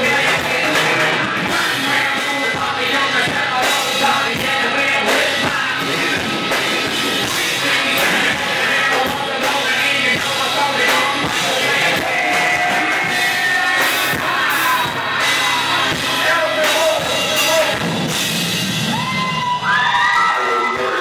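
A rock band playing live, with electric guitar, a drum kit and a yelled vocal. Near the end, a few long notes are held over the band.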